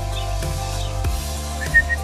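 Instrumental background music with steady held tones, with a few short, high, falling peeps from ducklings over it in the first second.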